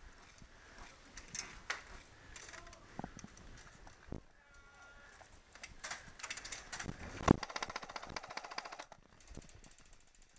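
Airsoft electric gun firing a rapid full-auto burst lasting about a second and a half, starting with a loud crack about seven seconds in, after scattered clicks and knocks from gear and movement.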